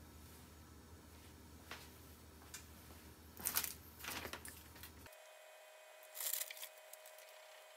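Faint, scattered crackles and ticks from a saucepan of frozen ramen heating on a gas burner as the frozen soup block thaws, a few short pops a second or so apart, loudest a little past the middle.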